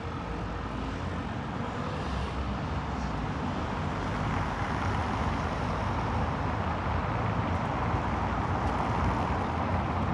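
City street traffic noise: a steady, even hum of cars that gradually grows louder, with no single vehicle standing out.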